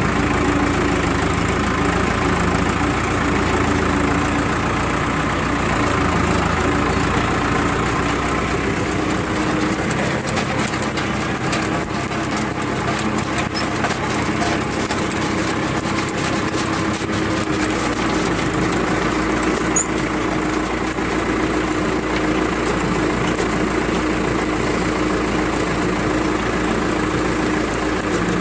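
Tractor engine running steadily under load while pulling a potato digger, with the digger clattering as it lifts soil and potatoes, the clatter busiest through the middle.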